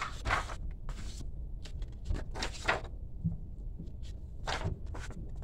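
Paper sticker sheets being flipped over and laid flat on a spiral-bound budget planner: a few short rustles and soft taps.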